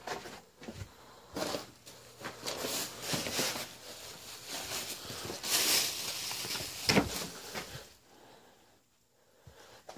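Footsteps scuffing over grit and dirt, with rustling and handling noise, and a sharp click about seven seconds in.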